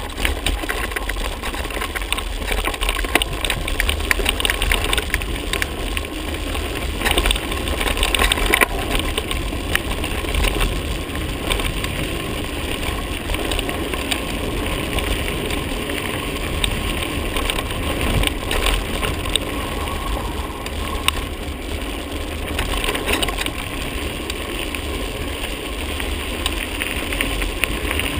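Mountain bike rolling over a dirt and gravel track, heard from a camera on the bike or rider. Wind on the microphone gives a steady low rumble, and a constant scatter of small clicks and rattles comes from the tyres on stones and the bike shaking.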